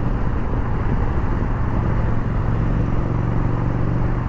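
Yamaha Bolt's air-cooled V-twin engine running steadily under way, a low even hum mixed with wind and road noise.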